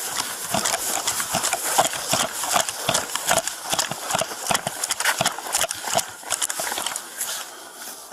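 Hurried footsteps, about three a second, with clothing and gear rubbing and knocking against a body-worn camera, as a police officer moves quickly on foot.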